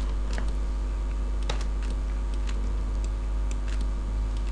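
Irregular clicks of a computer mouse and keyboard, about two a second, over a steady low electrical hum.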